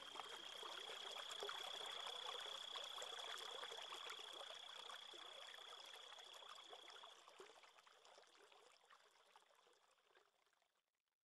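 Faint trickling, babbling water, with a thin steady high tone over it that stops about seven seconds in; the water fades out near the end.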